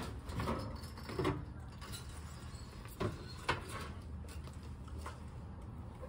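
Handling knocks and rattles from the air conditioner condenser's removed top panel as it is flipped back over: a few separate clunks, the sharpest about three and a half seconds in, over a low steady hum.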